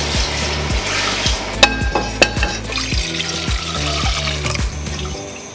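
Background music with a steady beat over the hiss of cloudy pork broth being poured from a measuring cup into a stainless steel saucepan. There are two sharp clinks a little over a second and a half and about two seconds in, and the music stops just before the end.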